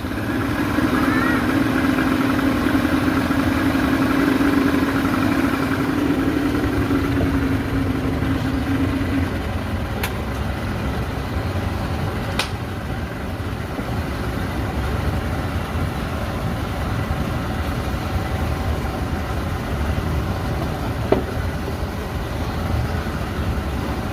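Speedboat engine running steadily with a low rumble. Its humming tone fades out about nine seconds in, and there are two short clicks near the middle.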